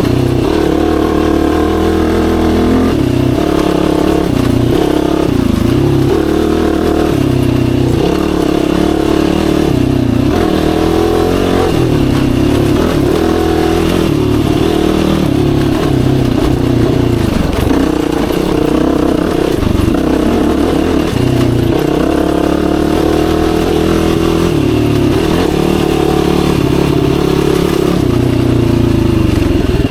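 Yamaha YFZ450R sport quad's single-cylinder four-stroke engine running under way, its revs rising and falling again and again as the rider accelerates, shifts and rolls off the throttle.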